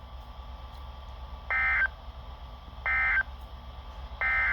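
NOAA Weather Radio SAME end-of-message data bursts: three short bursts of digital tones, each about a third of a second, about one and a third seconds apart, over a faint radio hiss and hum. They mark the close of the Required Weekly Test broadcast.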